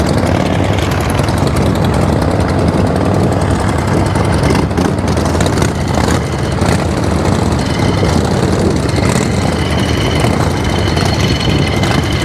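Several custom chopper motorcycle engines running together at close range, a loud steady engine noise.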